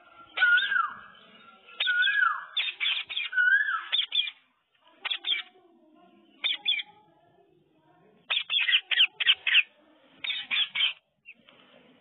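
Indian ringneck parakeets calling: shrill squawks, some bending up and then down in pitch, in the first few seconds. Then a quieter stretch with single short squawks, and a quick run of squawks near the end.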